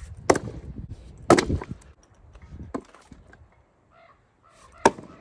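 Splitting axe striking firewood rounds: sharp chops with a cracking ring, two in the first second or so, the loudest about a second in, and another blow near the end.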